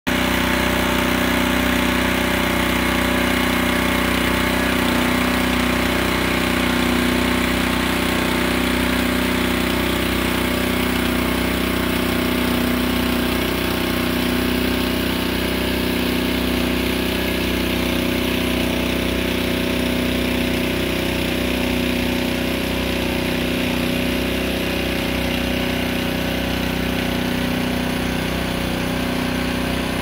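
An engine or large machine running steadily at one speed, a constant low drone that does not change.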